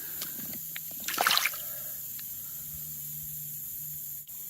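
A short splash and slosh of water about a second in, then a faint steady hiss.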